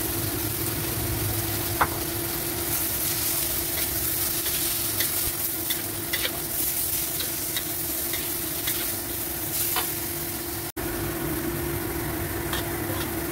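Bean sprouts and egg sizzling in a hot steel wok while a metal spatula stirs and scrapes them, with scattered sharp clicks of the spatula striking the wok over a steady low hum. The sound cuts out for an instant late on.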